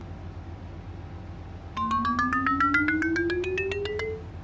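A quick ascending run on a xylophone-like mallet instrument, a comic editing sound effect, starting about two seconds in. The notes come about six a second and climb steadily, over a low tone gliding upward.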